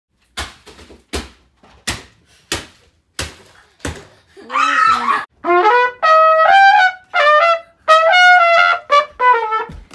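Six sharp clicks come evenly about two-thirds of a second apart. A trumpet then plays a short tune of several held notes as an intro jingle.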